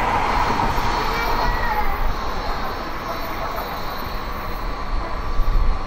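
Tokaido Shinkansen N700-series train pulling away past the platform end, its steady rumble of wheels on rail and rushing air slowly fading as the tail end draws off.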